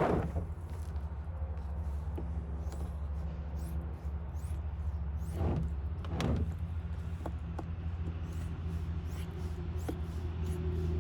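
A few short scraping, crunching sounds as a stiff plastic floor liner is cut and handled, two of them close together about five and a half seconds in. A steady low hum runs underneath.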